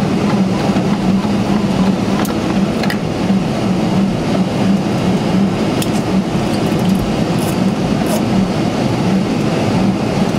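Steady flight-deck noise of a Boeing 747-400 taxiing in rain: a constant low hum over an even rush, with a few light ticks.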